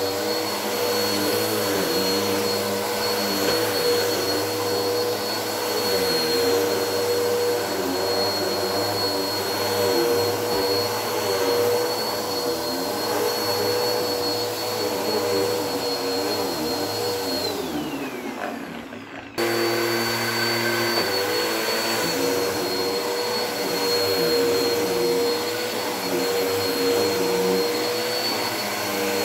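Bissell vacuum cleaner running steadily with a constant motor whine. About two-thirds of the way through, the motor winds down in pitch, then is suddenly back at full speed.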